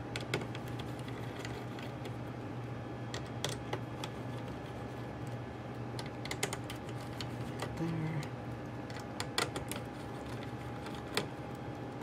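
Scattered light clicks and ticks of a small Phillips screwdriver backing out tiny screws and tapping on the metal and plastic parts of an opened iBook G4 laptop, over a steady faint hum.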